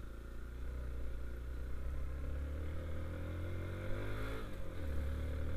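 Hero XPulse 200 4V's single-cylinder engine running under load as the motorcycle climbs a hill road. Its note rises slowly, dips briefly about four and a half seconds in, then climbs again.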